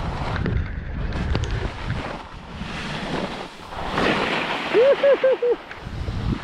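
Skis scraping and chattering through turns on hard, dry snow, with wind rushing over the helmet-mounted microphone. About five seconds in, four quick, short, pitched squeaks.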